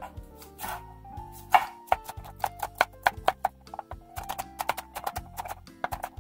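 Chef's knife chopping tomato on a wooden cutting board: a run of short, sharp knocks of the blade on the board, quicker in the second half, over background music.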